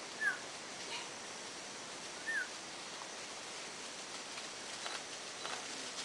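Two short, high chirping animal calls that fall in pitch, about two seconds apart, over a steady hiss of forest background.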